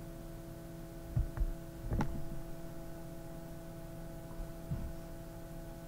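Steady low electrical hum, with a few soft thumps and one sharper click about two seconds in.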